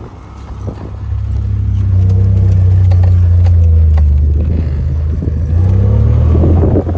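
Honda Talon 1000X-4 side-by-side's parallel-twin engine pulling under throttle. It gets louder from about a second in, eases off a little past the middle and picks up again near the end.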